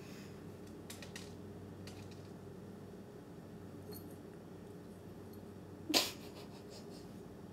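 A small dog nosing at an insect along a hardwood floor: a few faint ticks over a steady low room hum, with one short, sharp, louder noise about six seconds in.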